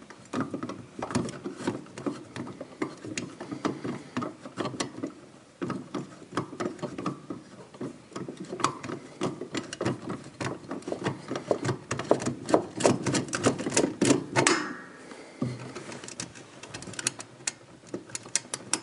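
Rapid small clicks and rattles of fingers twisting plastic wire nuts and handling wires in a dishwasher's electrical junction box, disconnecting the electrical supply. The clicking runs thick and busy, then breaks off about fourteen and a half seconds in to sparser ticking.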